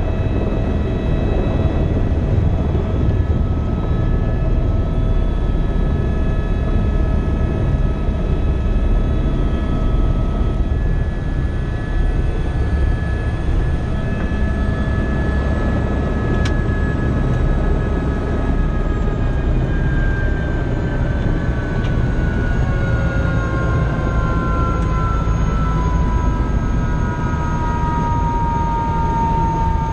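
Helicopter engine and rotor running in a steady loud rumble, heard inside the doors-off cabin, with a whine over it. In the last third the whine falls steadily in pitch, as the turbine winds down on the ground.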